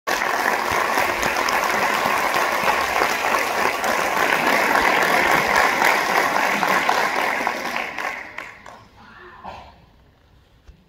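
Audience applauding, dying away about eight to nine seconds in.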